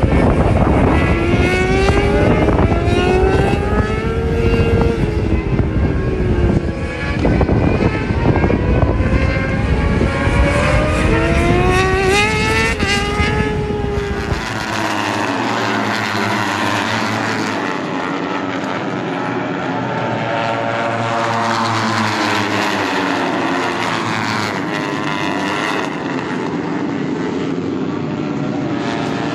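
Racing motorcycles passing at speed, engine pitch climbing through the gears and falling away as each bike goes by. About halfway through, the sound turns into a thinner, further-off drone of several bikes running together.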